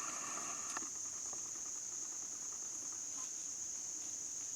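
Insects, crickets by the sound, chirring in a steady high-pitched chorus, with a faint click under a second in.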